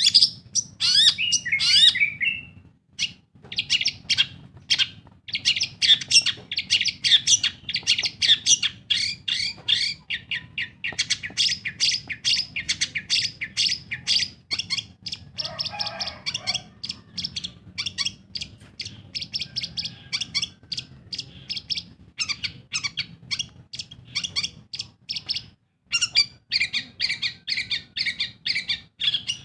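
Long-tailed shrike (pentet) singing non-stop: a dense stream of rapid, sharp chirps and harsh squawky notes, with only a brief break about 26 seconds in.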